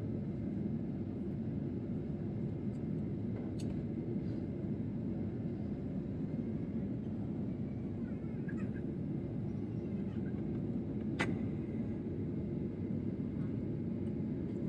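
Steady low rumble of cabin noise inside a Boeing 737-800 airliner, broken by two sharp clicks: one about four seconds in and a louder one about eleven seconds in.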